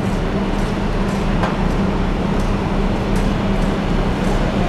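Steady low drone of a cargo ship's machinery, with a constant hum.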